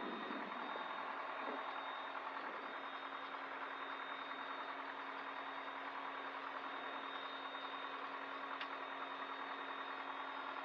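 Piper PA-28 light aircraft's piston engine idling, heard from inside the cabin as a steady, even hum.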